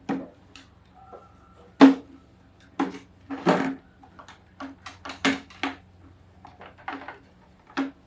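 Irregular clicks, knocks and rattles as plastic wire connectors are pulled off a CRT television's circuit board and the board is shifted on the table: about a dozen sharp handling sounds, the loudest just under two seconds in.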